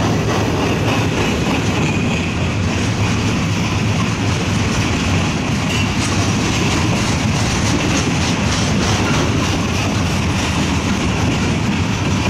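Freight train cars (covered hoppers, tank cars and open hoppers) rolling steadily past at close range: a continuous rolling noise of steel wheels on rail, with repeated clicks as the wheels cross rail joints.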